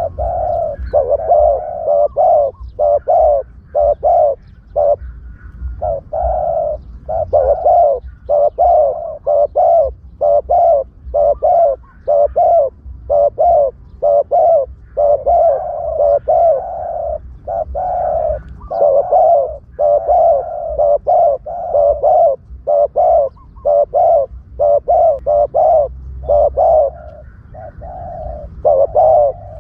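Spotted dove cooing over and over in quick, closely repeated phrases, each coo wavering in pitch.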